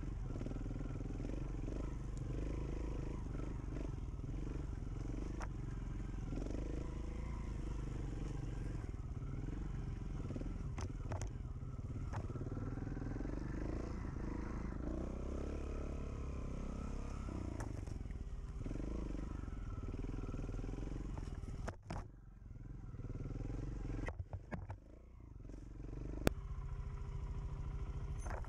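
Off-road motorcycle engine running over a rocky trail, its revs rising and falling with the throttle, the sound dropping away briefly twice near the end.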